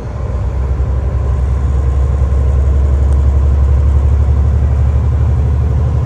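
A motor vehicle's engine running with a steady low rumble that grows a little louder over the first few seconds and then holds level.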